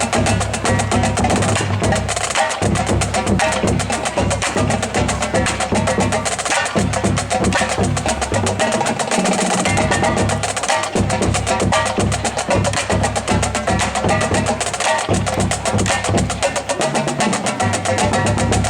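Marching drumline playing a cadence: snare, tenor and bass drums striking in a fast, steady rhythm without a break.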